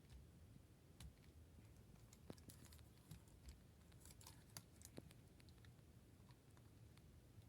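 Near silence with faint, scattered light clicks and taps.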